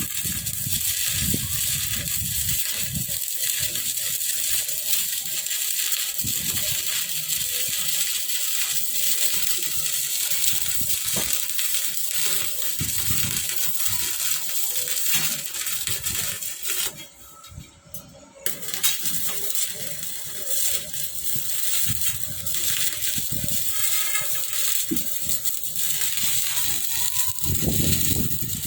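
Continuous crackling hiss of a stick-welding arc from a Yamato 200 A inverter welder as an electrode rod burns down. The arc breaks off for about a second and a half roughly two-thirds through, then restrikes and carries on.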